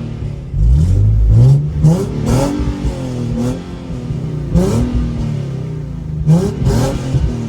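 Nissan 370Z's 3.7-litre V6, running through catless resonated test pipes, revved hard four times, with sharp cracks and pops from the exhaust as the throttle is let off: a flame tune set up to make the exhaust pop and burn.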